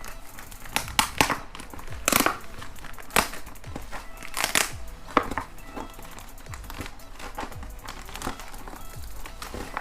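Sealed sticker packaging crinkling and rustling in irregular bursts as it is handled, with quiet background music.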